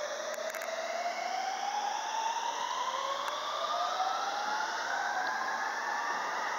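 Rapid Marine Liner electric train (JR 223-5000 and 5000 series units) accelerating away from the platform, its traction inverter and motors whining steadily upward in pitch. A second rising whine joins about three seconds in.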